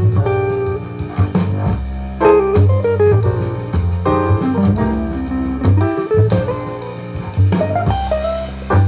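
Instrumental jazz-style music, with drum kit, a bass line and piano, playing from an MGTEC Classic XL Bluetooth speaker and picked up by a microphone.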